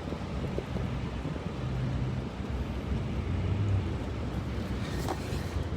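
A vehicle engine running, heard as a steady low rumble with a hum that shifts in pitch now and then, mixed with wind noise on the microphone.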